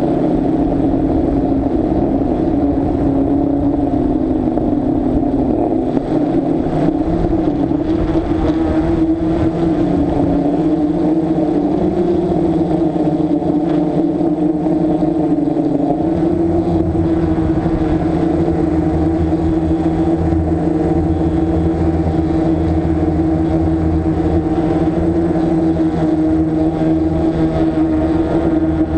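DJI Flame Wheel F550 hexacopter's six electric motors and propellers humming steadily in hover, heard from the camera on board, the pitch wavering slightly as the throttle adjusts. A low rumble joins about halfway through.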